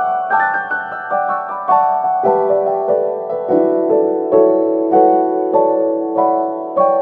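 Background music: a keyboard melody of struck, decaying notes, a few a second, over longer held lower notes.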